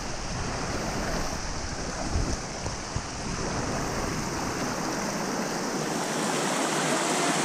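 Steady rushing of stream water, with wind rumbling on the microphone until about six seconds in.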